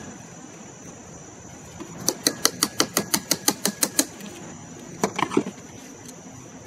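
A quick run of about a dozen sharp metal taps, around six a second, then three or four more about five seconds in: a hand tool striking the clutch hub and holding tool of a removed car AC compressor to jar the stuck hub loose.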